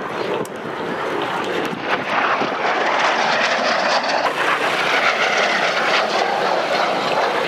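Airplane flying low overhead, its engine noise building over the first couple of seconds and then holding loud and steady.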